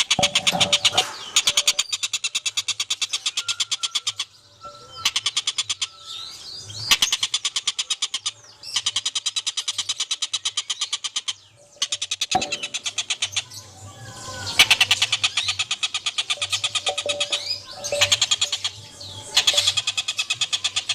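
A songbird singing in rapid trills of sharp repeated notes, about a dozen a second, in bursts of one to three seconds broken by short pauses.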